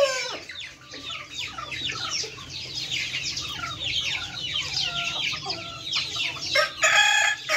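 Many chickens clucking and calling from the pens, a dense run of short falling calls, with one louder, held call near the end.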